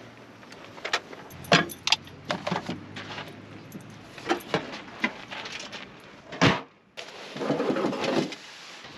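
Camping gear being shifted and pulled out of a pickup truck bed under a camper shell: a series of knocks and clatters, with the loudest thump about six and a half seconds in, then a longer rustling scrape as a fabric bag slides out over the bed.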